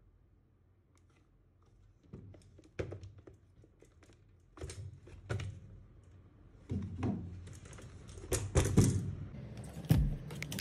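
Irregular clicks, knocks and thunks of tools and hedge trimmer parts being handled on a bench. They start about two seconds in and come more often toward the end.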